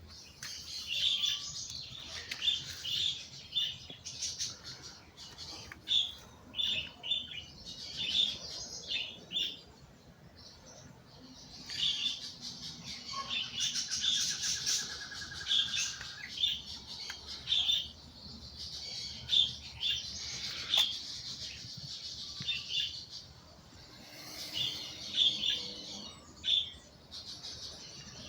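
Wild birds singing: bursts of short, high chirps again and again, with a rapid trill about halfway through.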